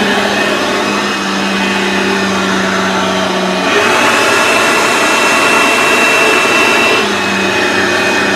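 Aeros upright vacuum cleaner running on carpet: a steady motor hum with a rushing of air. About four seconds in it grows louder and a high whine comes in for about three seconds, then it settles back.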